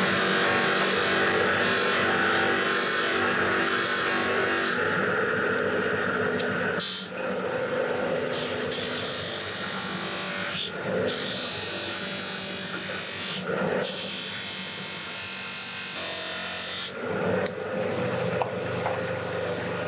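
Electric bench polisher running, its cloth buffing wheel scrubbing against a metal oil line pressed to it to polish it. The scrubbing breaks off briefly three times as the line is lifted away, while the motor hum carries on.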